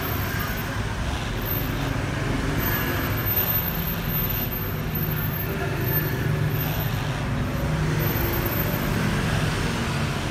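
Steady low background rumble with a faint hiss, with no distinct events; the hand soldering itself makes no sound that stands out.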